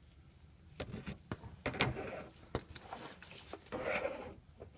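Light clicks, knocks and rustling scrapes as a power steering pressure hose is worked by gloved hands up into place among the metal parts under the car, with a couple of longer scraping rubs.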